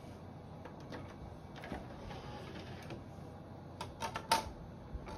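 A few scattered light clicks and clacks, the loudest a sharp click about four seconds in, over faint background noise.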